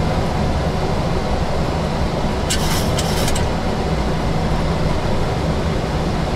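Steady flight-deck noise of a Boeing 737 climbing after takeoff: airflow and engine noise as an even rumble. A brief high-pitched crackle lasts about a second, starting some two and a half seconds in.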